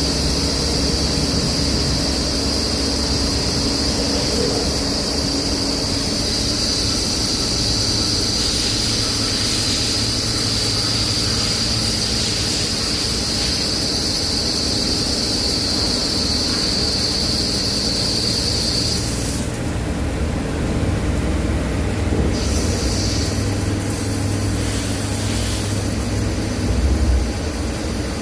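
CNC lathe running during outside-diameter turning: a steady machine drone with a high whine. The whine cuts out about two-thirds of the way through, then returns briefly.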